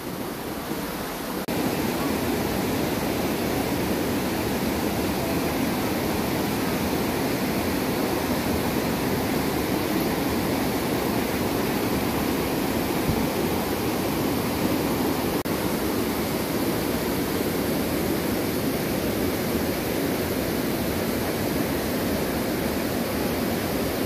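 River rapids rushing over rocks: a steady wash of whitewater noise that gets a little louder about a second and a half in.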